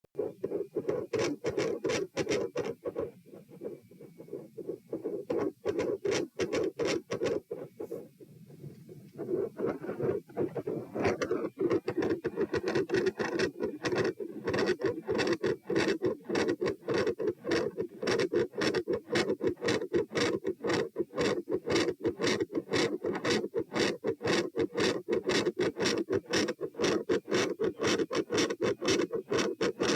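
Heart sounds picked up through a stethoscope at the pulmonic listening point: a quick train of beats over scratchy contact noise from the chest piece. The beats fall quieter for several seconds about 3 seconds in, then come back louder and denser.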